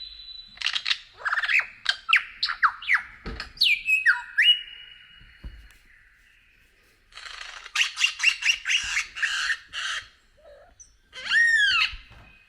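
Bird calls: a quick run of downward-sliding chirps, a whistle held steady for about a second and a half, then after a short pause a string of harsh rasping notes, and near the end two or three arched, slurred calls.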